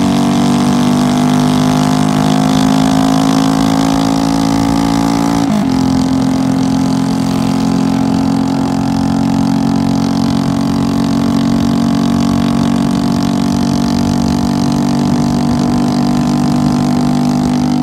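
Tractor's diesel engine running steadily at constant speed, with a brief dip in pitch about five and a half seconds in.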